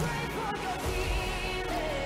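Recorded pop song playing, a singing voice with vibrato over bass.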